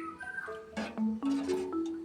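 Background music: a light, bouncy melody of short struck notes like a marimba or xylophone, with a few small clicks over it.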